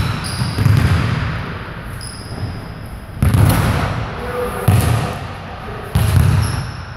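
Basketballs bouncing on a hardwood gym floor: heavy, irregularly spaced thuds about a second or more apart, echoing in the large hall, with a few short high squeaks between them.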